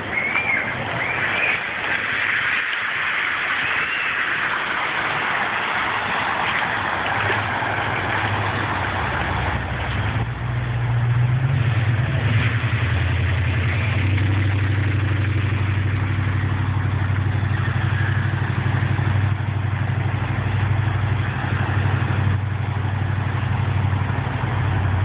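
An engine running steadily. Its low hum sets in about a third of the way through and grows louder soon after, following a stretch of steady hiss.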